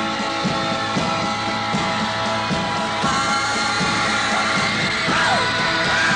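A 1960s rock and roll beat group playing and singing over a steady drum beat, with fans screaming over the music near the end.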